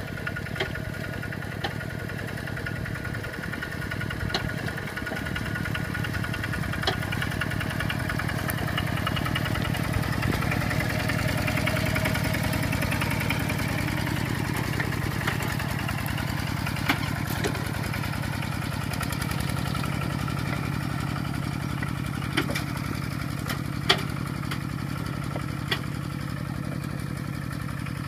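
Single-cylinder diesel engine of a Kubota RT-series walking tractor running steadily as it works through paddy mud, growing a little louder midway. A few sharp clanks stand out, the loudest about two-thirds of the way in.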